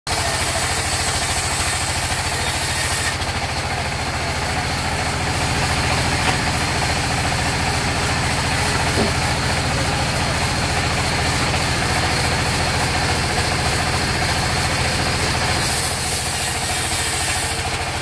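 A sawmill's engine running steadily with a rapid, even chugging, driving a band saw while a mahogany log is pushed through the blade. The higher hiss of the saw thins out after about three seconds and comes back near the end.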